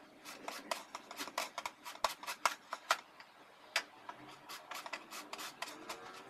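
Unripe green mango being shredded on a plastic julienne grater, pushed across the blades in quick repeated strokes, about five a second, with a short pause a little after the middle.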